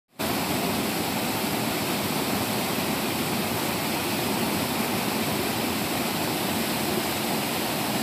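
Small waterfall cascading over rocks into a shallow pool: a steady rushing of falling water.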